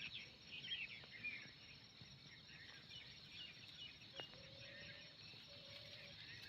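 Faint outdoor birdsong: many small, scattered chirps from several birds over a steady high insect drone. About four seconds in there are two short, flat low tones.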